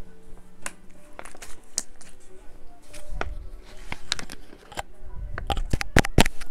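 Plastic water bottle being handled and its cap twisted open: scattered crinkles and sharp clicks, growing denser in the second half, with low bumps from handling close to a clip-on microphone.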